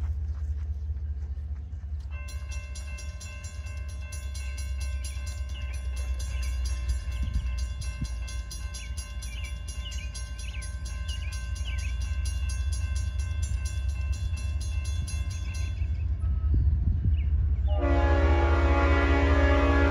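Railroad grade-crossing warning bell ringing steadily for about fourteen seconds as the crossing activates and the gates come down, then falling silent. Near the end, the horn of an approaching CSX freight locomotive sounds loudly. A low rumble runs beneath throughout.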